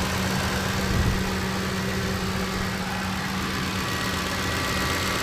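Freshly rebuilt Ford 5.4 L Triton V8 idling steadily after a timing chain replacement, smooth-running, with the fuel injectors' ticking the most audible noise.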